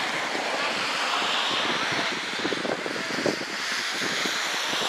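Wind buffeting the camera microphone in gusts, over the steady hiss of rain.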